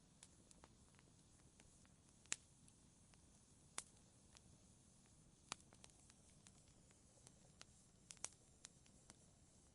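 A wood fire crackling quietly: scattered sharp pops and snaps at irregular intervals over a faint low hiss.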